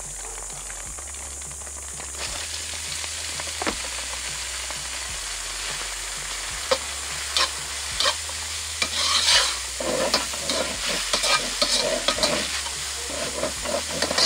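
Noodles sizzling in hot oil in a wok, the sizzle picking up about two seconds in as they hit the pan. From about halfway on, a metal spatula scrapes and clacks against the wok as the noodles are stir-fried.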